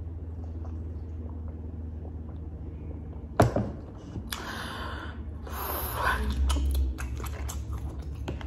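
A drink cup knocks down onto the table about three and a half seconds in, followed by irregular crackling and rustling as crab-leg shells are handled and pulled apart, with sharper cracks near the end.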